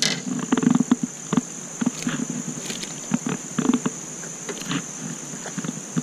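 A steady, high insect drone, with scattered clicks and rustles from hands working a hook out of a small sunfish.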